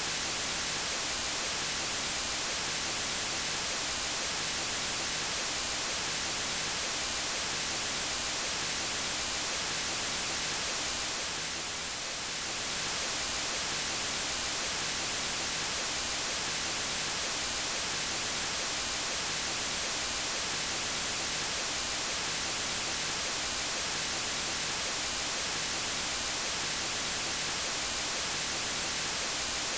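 Steady electronic white noise, an even hiss strongest in the high end, dipping briefly in level about twelve seconds in.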